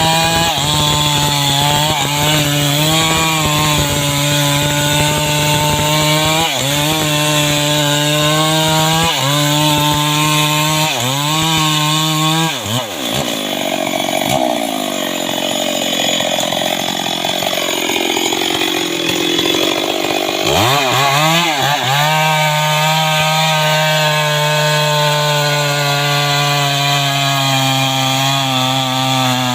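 Stihl MS 381 two-stroke chainsaw running at high revs, with several brief dips in pitch. About halfway through it spends several seconds bogged down, its pitch low and wavering as it cuts into mahogany wood, then returns to a steady high rev.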